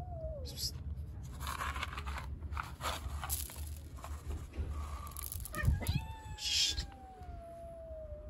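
A cat giving long, drawn-out yowls that slowly fall in pitch: one trails off just after the start, and another begins about six seconds in and runs on. Between them come crunching, rustling noises and a sharp knock shortly before the second yowl.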